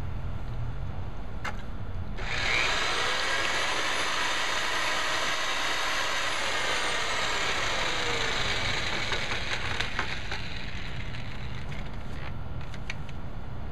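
Northern Tool Industrial double-auger electric mortar mixer starting up about two seconds in, its motor whine rising quickly and then holding steady while the twin paddles churn mortar in a plastic bucket, at about half speed on its low range. Near ten seconds the pitch falls away as the motor winds down.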